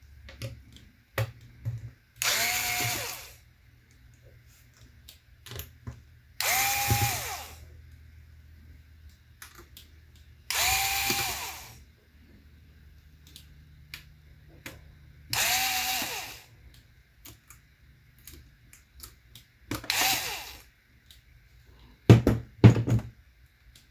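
A Metabo HPT cordless screwdriver backs out the small screws that hold a laptop's LCD panel in place. It runs five short times, about a second each and several seconds apart, with a motor whine each time. A few sharp knocks come near the end.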